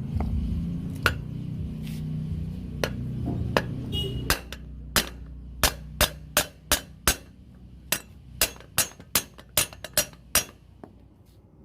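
Hammer blows on the steel shell of a fridge compressor being broken open along its welded seam: a low rumbling with a few knocks, then about fifteen sharp, ringing metal strikes at roughly two a second.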